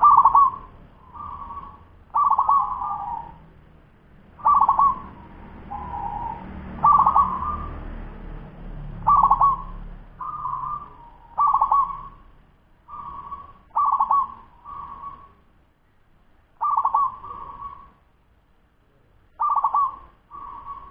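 A 10-month-old zebra dove (perkutut) cooing: a string of short rolling coos on much the same pitch, in groups of two or three with short pauses, coming more sparsely toward the end.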